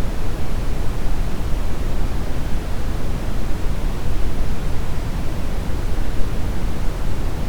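Steady synthetic brown noise: an even, deep rushing hiss weighted heavily toward the bass, with no change or events.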